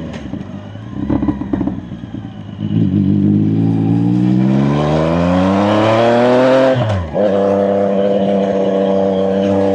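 CFMOTO 675NK's three-cylinder engine rolling off with a few crackles, then pulling hard with the revs climbing for about four seconds. The revs drop sharply for a quick upshift, then the engine holds steady on the throttle.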